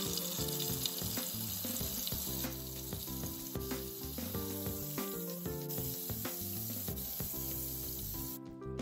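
Butter sizzling and crackling as it melts in a hot pan, with many small pops; the sizzle cuts off shortly before the end. Background music with a repeating chord pattern plays underneath.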